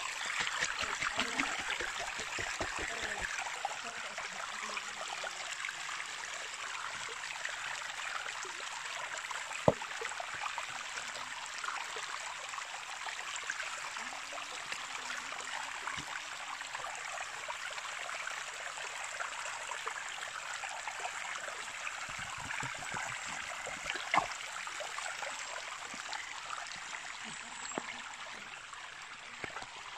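Shallow stream running over rocks: a steady hiss and trickle of flowing water, broken twice by a sharp knock.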